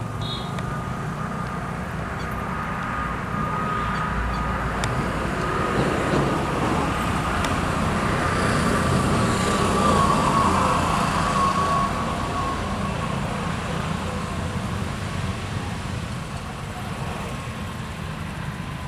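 Road traffic: a vehicle passes by, its whine dropping slightly in pitch as it goes past, over a steady low rumble; loudest about ten seconds in.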